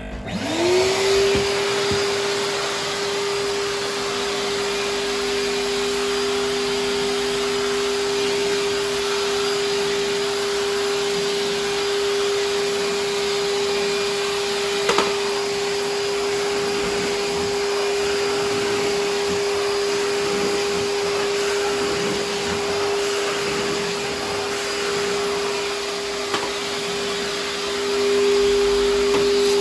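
Numatic George wet-and-dry vacuum cleaner's motor switching on, rising to speed within a second and then running steadily with a high whine. A single click comes about halfway through. Near the end a second, lower hum joins and it gets louder.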